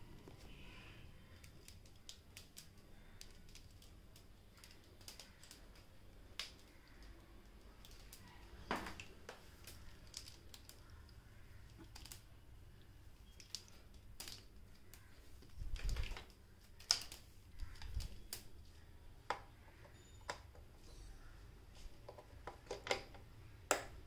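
Faint, irregular clicks and taps, a few louder ones in the second half, over a low rumble: handling noise from a moving phone camera. No vacuum motor is running.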